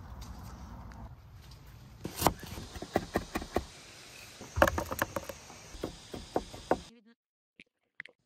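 Irregular sharp knocks and clicks, about a dozen between two and seven seconds in, over a low rustling handling noise. Near silence follows for the last second or so.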